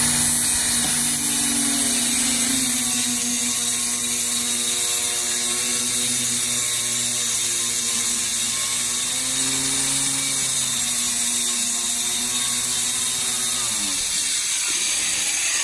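Corded circular saw running and cutting lengthwise through a sheet of plywood: a loud, steady whine, its motor note wavering under load and falling near the end.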